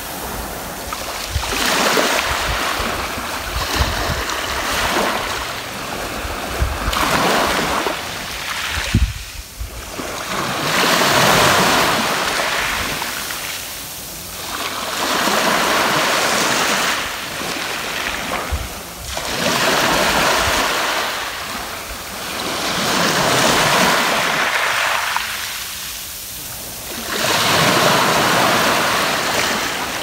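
Small sea waves washing up over a sand-and-pebble beach and draining back, the foamy rush swelling and fading about every three to four seconds.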